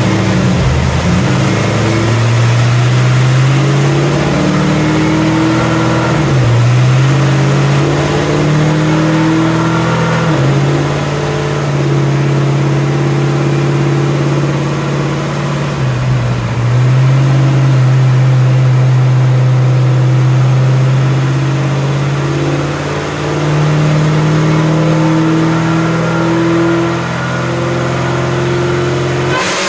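A vehicle's engine running, holding a steady pitch for several seconds at a time with sudden shifts in pitch in between. It cuts off abruptly near the end.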